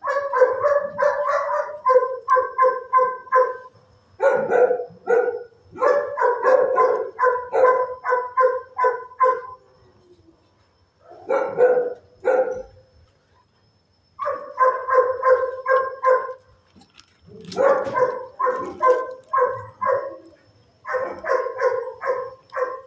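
A dog barking in fast runs of about four barks a second, in repeated bouts of one to four seconds with short pauses between them.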